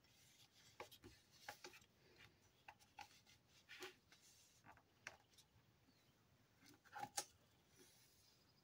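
Quiet handling of a fountain pen in a lined presentation box: soft rubs and small scattered clicks as the pen is tucked under the ribbon strap, then a pair of sharper clicks near the end as the box lid is shut.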